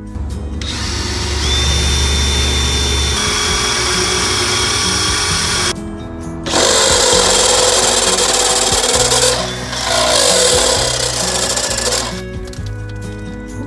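Cordless drill boring into the steel underside of a school bus, in two long runs separated by a short pause about six seconds in; a thin high squeal rides on the first run. Background music plays throughout.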